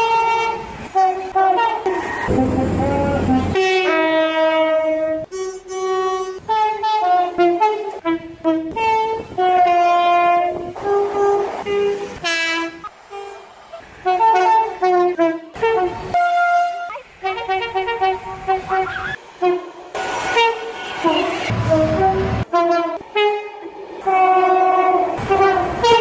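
A run of short train horn blasts from passing express passenger trains, sounded at several different pitches in quick succession. The rumble of a train going by is heard twice between them.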